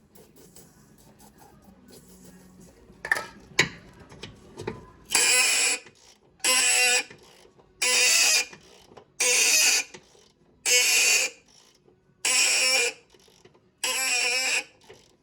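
Impact wrench hammering on a seized steering-rack bolt in seven short trigger bursts, about one and a half seconds apart, after a quiet start with a couple of sharp clicks.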